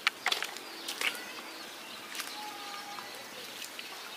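Horn snail shells clicking against a stainless steel bowl as they are dropped in, several sharp clicks in the first second and another about two seconds in. Birds chirp faintly in the background.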